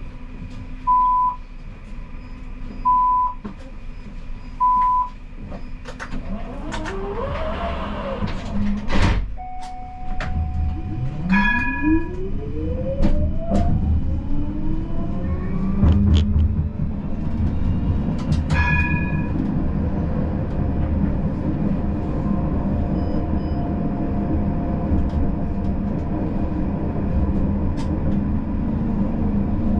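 Siemens Combino tram: four short beeps about two seconds apart, then a steady low rumble and a whine that rises in pitch as the tram pulls away and gathers speed. Two short multi-tone signals sound a few seconds apart along the way.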